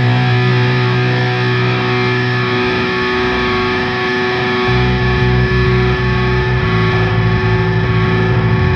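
Rock music with no vocals: a distorted electric guitar plays sustained, effects-laden notes, and a heavy, rhythmic low end comes in about halfway through.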